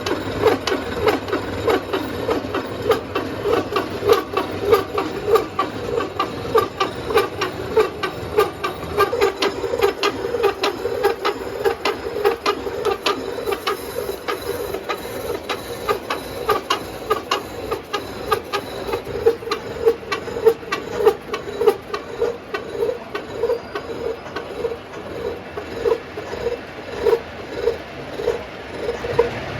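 Metal-cutting machine running with a steady rhythmic clatter, about two beats a second, as gear teeth are machined.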